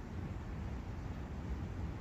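Steady wind in a forest: an even, low rumbling hiss with no distinct events.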